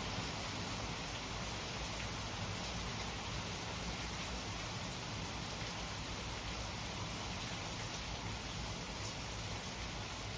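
Steady rainfall, an even hiss that holds at the same level throughout.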